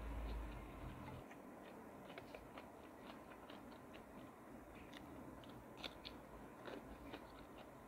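Faint chewing, with many small crunches and clicks, as a person eats coconut-milk tilapia and half-cooked lettuce with her hands.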